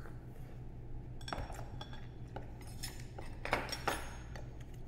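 Dishes and utensils clinking: a few light knocks, the loudest two coming close together past the middle, over a steady low room hum.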